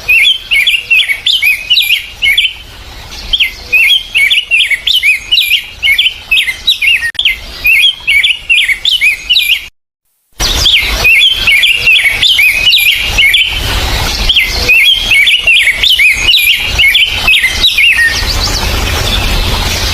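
Forest songbird singing rapid phrases of quick, repeated chirps, broken by a moment of complete silence about halfway through.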